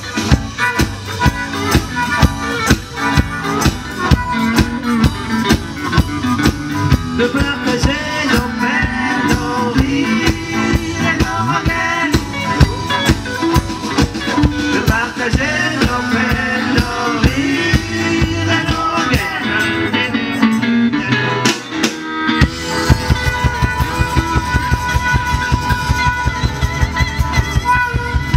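Live band playing amplified blues through the PA: electric guitars over a drum kit. About three-quarters of the way through the band breaks briefly, then the drums pick up a steady beat under a held note.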